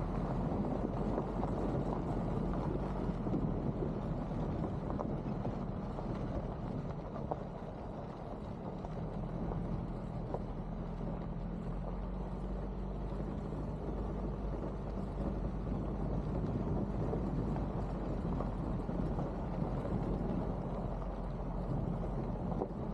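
A steady low engine hum with wind noise on the microphone.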